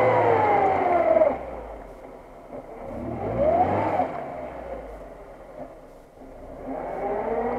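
Lada Niva engine revving hard in repeated bursts as the car is stuck in deep mud. It is already high at the start and drops about a second in, climbs and falls again a few seconds later, and rises a third time near the end.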